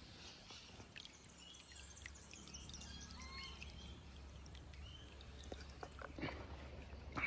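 Birds chirping and calling: many short high chirps and whistles, some rising or falling in pitch, with a few soft knocks about six seconds in.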